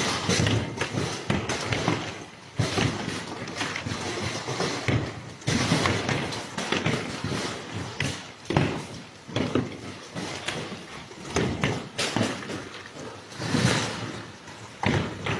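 Hailstorm: a dense, continuous clatter of hailstones hitting hard surfaces, with many sharp knocks that swell and ease in loudness.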